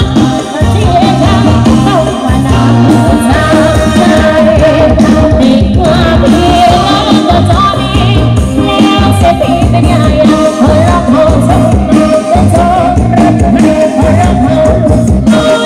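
Loud dance music with a lead singer, played through a large truck-mounted loudspeaker stack.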